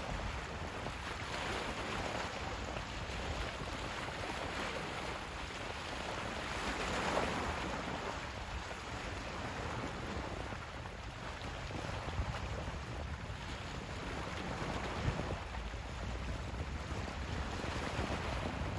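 Wind buffeting the microphone over small waves on open sea water, a steady rushing noise that swells now and then.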